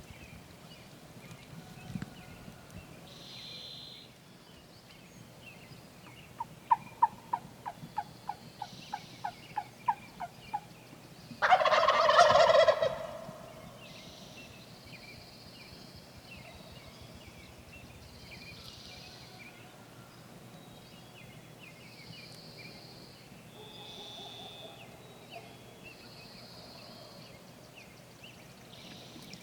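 A run of a dozen or more evenly spaced turkey yelps, then a wild tom turkey gobbles loudly once for about a second and a half. Songbirds chirp faintly in the background.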